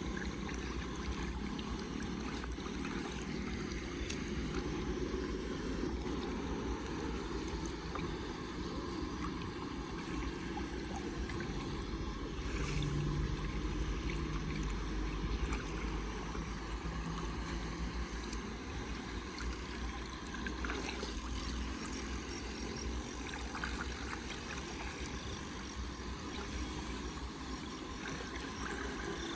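Floodwater rushing steadily, with a heavy low rumble underneath.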